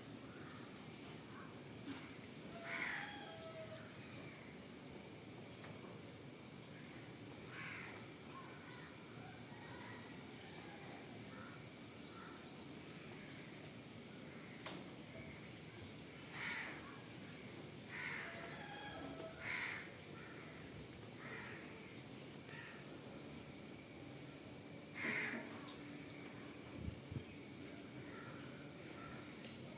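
A steady high-pitched insect trill runs throughout, with several short, harsh bird calls scattered over it.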